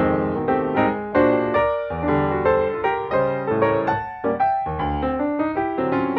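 Background piano music: a melody of struck notes, each ringing and fading.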